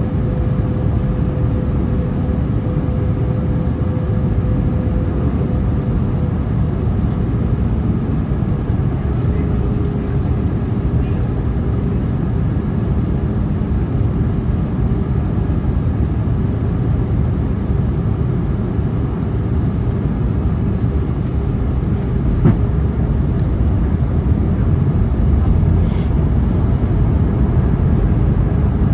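Wind rumbling on the microphone, with the distant steady sound of an approaching Airbus A321neo's jet engines and faint held engine tones underneath.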